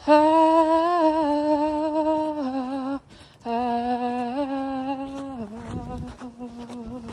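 A woman's voice singing a slow wordless melody in long held notes that step down in pitch, with a short breath about three seconds in.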